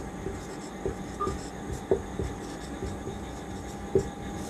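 Marker writing on a whiteboard: the tip tapping and scraping against the board in short strokes, with sharper taps about two seconds in and near the end. A faint steady hum runs underneath.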